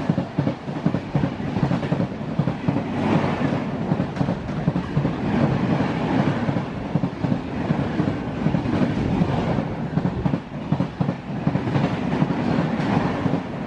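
Express train's passenger coaches rushing past at high speed: a steady loud rumble with rapid clattering of wheels over the rail joints.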